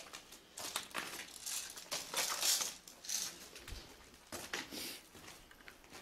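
Footsteps crunching and scraping over rubble and debris on the floor of a derelict building, with clothing and gear rustling. An uneven series of crunches, loudest about two seconds in.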